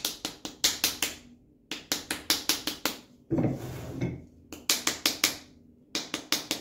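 Wooden spatula paddling the sides of a soft hand-pinched clay pot to shape it: quick dull slaps about five a second, in runs with short pauses. A scuffing noise of about a second near the middle as the pot is handled.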